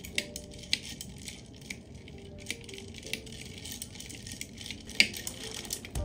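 Ice cubes clinking against the inside of a glass jar as an iced matcha latte is stirred: a quick, irregular run of light clinks, the sharpest about five seconds in.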